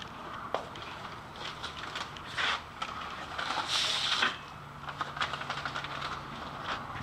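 Scattered clicks and knocks of hard objects being handled and moved about, with a short hiss about four seconds in and a low steady hum from about halfway.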